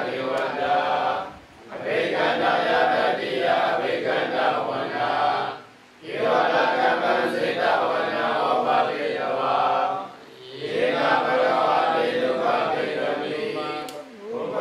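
Buddhist monks chanting Pali verses together in unison, in steady phrases of about four seconds, each ending in a short pause for breath.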